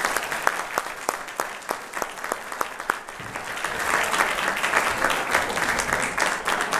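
Audience applauding, with a few sharp individual claps standing out; the applause grows denser about four seconds in.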